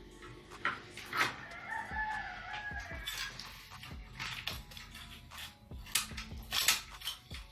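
A rooster crows once, a call of about two seconds starting about a second in, over scattered sharp metal clinks and knocks.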